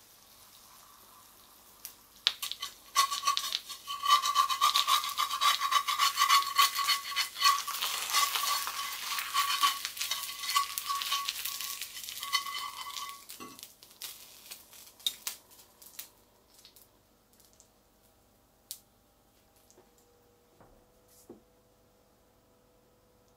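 A metal slotted spatula scraping under a fried egg in a hot cast-iron skillet, the egg still sizzling, with a steady high squeal in the scrape. It stops about 13 seconds in as the egg slides onto the plate, followed by a few light clicks and taps.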